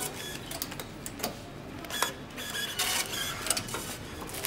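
Paris Métro ticket turnstile taking in a paper ticket: its reader whirrs and clicks, with several sharp clicks and knocks as the gate opens.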